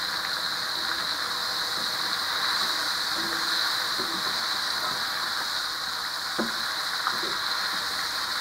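Flour-coated crab pieces deep-frying in a wok of hot oil: a steady sizzle and bubbling, with a few light clicks and knocks as they are turned.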